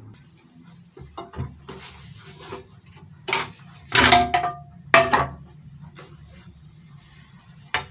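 Glassware and dishes clinking and knocking on a counter while tea is set out: a series of short sharp clinks, the loudest about four and five seconds in, one ringing briefly like a struck glass.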